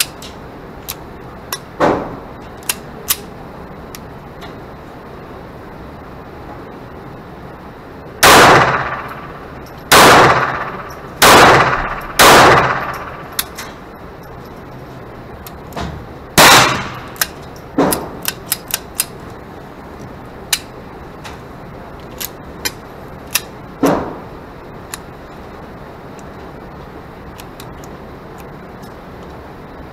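Ruger SR22 .22 LR pistol fired inside an indoor range booth: four sharp shots a second or so apart, then a fifth a few seconds later, each echoing briefly. Fainter gunshots and small metallic clicks and clinks are scattered around them.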